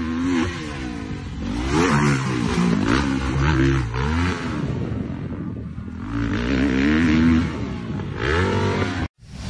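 Motocross dirt-bike engines revving hard and backing off again and again as riders take jumps, the pitch rising and falling with each throttle burst. The sound cuts off abruptly near the end.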